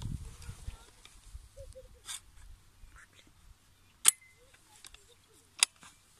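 Hands handling parts and items in a foam-lined hard plastic case: small knocks and rustles, with two sharp, loud clicks about four seconds in and again about a second and a half later.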